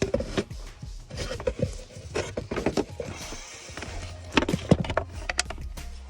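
Background music, with irregular knocks and clicks over it; the loudest come in a cluster near the end.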